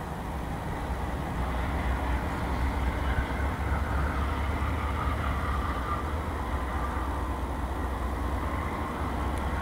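GE C40-8W diesel locomotive with its V16 engine working under load as it pulls a grain train, a steady low rumble.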